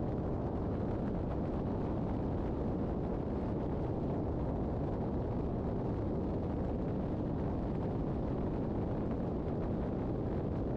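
Steady wind rush and engine drone of a light aircraft in flight, heard from a camera mounted outside on the airframe; an even noise with no changes.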